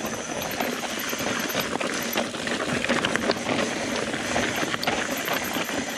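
Mountain bike rolling fast over a rough, rocky trail: a steady rattle of tyres, chain and frame, broken by many quick knocks as the wheels hit rocks and roots.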